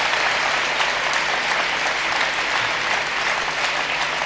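A large crowd applauding steadily, a dense patter of many hands clapping.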